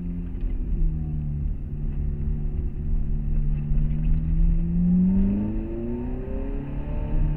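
Ferrari F430's 4.3-litre V8 heard from inside the cabin while driving, its pitch climbing gradually as it accelerates, then falling back about five seconds in and settling lower, over a low road rumble.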